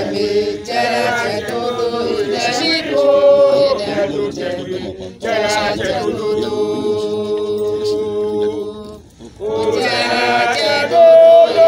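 Voices singing a chant without instruments, in sung phrases with a long held note in the middle and short breaks between phrases.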